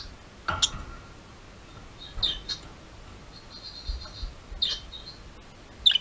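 Budgerigar chirping in short, high calls spaced a second or so apart, with a brief warble a little past the middle and the loudest chirp near the end.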